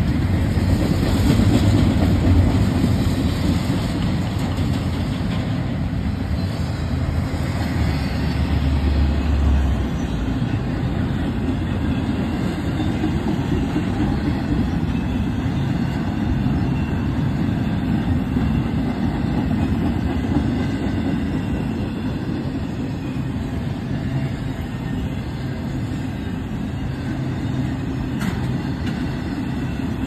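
Intermodal freight train cars rolling past, their steel wheels running steadily on the rails. A low hum is heard over the first few seconds.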